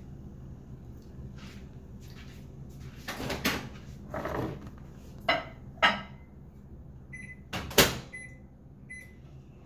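Several separate knocks and clatters of things being handled, the loudest about eight seconds in, with a few short high beeps in the last couple of seconds.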